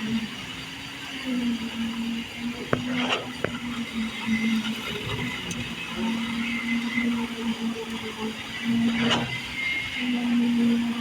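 Engine of concrete-pouring machinery running steadily, its hum swelling and dipping a little, with a few sharp knocks about three seconds in and another near the ninth second.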